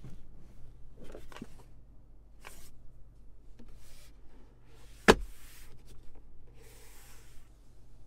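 Hard plastic center-console parts being handled: a few short rubs and scrapes, a single sharp click a little after five seconds in, and a longer rub near the end, over a low steady hum.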